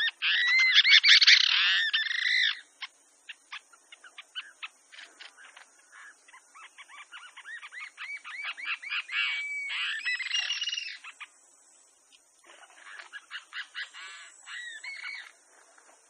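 Bronzy jacamar calling: runs of high whistled notes that rise and fall. There is a loud run at the start, then scattered single notes, then longer runs with a short pause between them.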